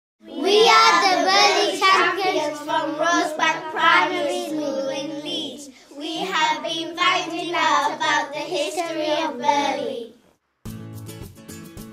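A group of children singing together without accompaniment, in two phrases with a short break about six seconds in. Near the end, strummed acoustic guitar music begins.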